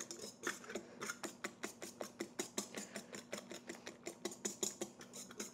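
Hand wire whisk beating egg yolks and lime zest in a stainless steel mixing bowl: a fast, even clicking of the wires against the metal, about five to six strokes a second, as the yolks are beaten thick and pale like an unset custard.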